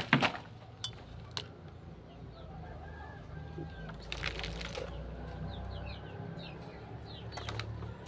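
Chickens clucking in the background, with small birds chirping faintly, and a few sharp clicks and knocks, the loudest near the start and about four seconds in.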